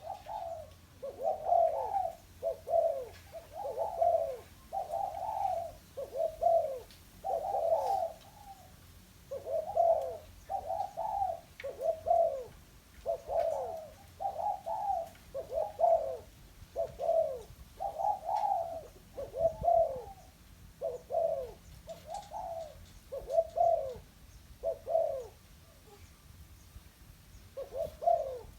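Spotted dove cooing over and over, short low hooting phrases coming about once a second, with a brief pause near the end. It is a caged decoy dove calling.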